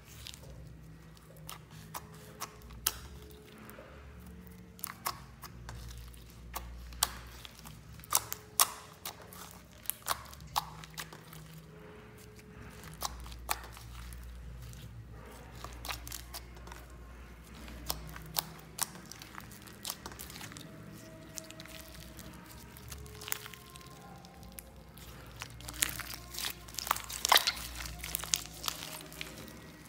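Slime being stretched, folded and squeezed by hand, giving irregular sticky clicks and crackles that come thickest near the end.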